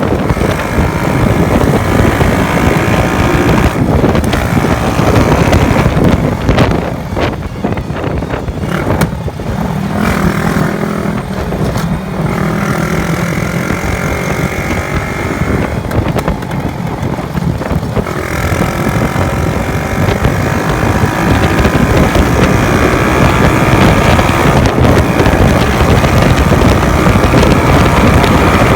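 Honda Wave 110 motorcycle's freshly overhauled single-cylinder four-stroke engine running hard at highway speed, its note rising and falling with the throttle. Heavy wind buffets the microphone throughout.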